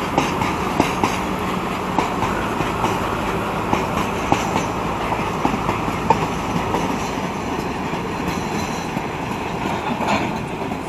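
Goods train of covered freight wagons rolling past, its wheels clicking irregularly over the rail joints. The sound eases off slowly toward the end as the last wagon and brake van go by and the train draws away.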